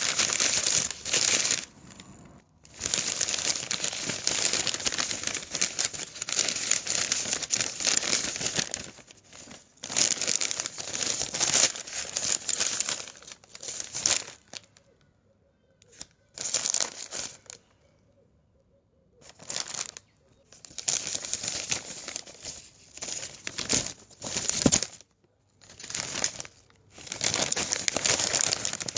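Newspaper being crumpled and rustled in long bouts of crackling, broken by short pauses and one longer quiet spell of a few seconds midway.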